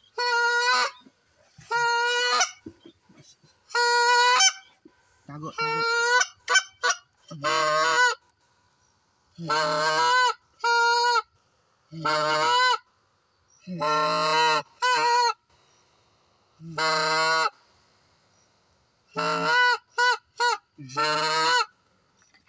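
Goose honking: a series of loud, close honks, each half a second to a second long, some followed by quick short clucks, with a pause of about two seconds before the last few honks.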